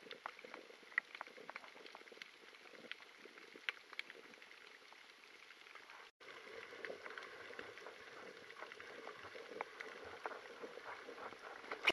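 Underwater sound picked up by the camera's microphone: faint, irregular crackling clicks over a steady hiss. It cuts out for an instant about six seconds in.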